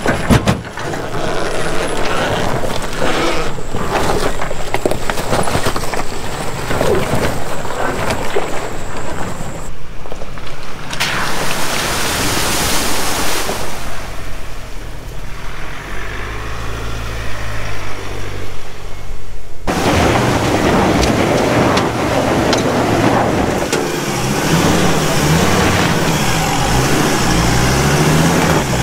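Four-wheel-drive vehicles driving off-road in a series of short clips: engines working over a rough, rocky track and water splashing through a creek crossing, with an engine revving up and down near the end.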